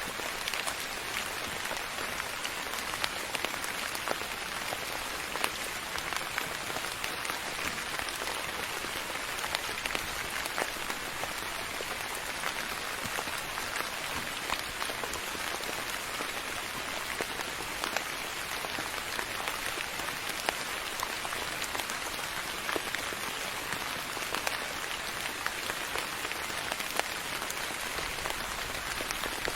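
Steady soft rain falling, an even hiss with many small drop ticks scattered through it.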